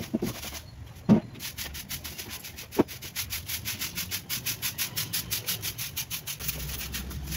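Soft fibre broom sweeping a dusty, gritty floor in quick, even strokes, about five a second, starting about a second and a half in. A sharp knock, the loudest sound, comes about a second in, and a smaller one follows shortly after.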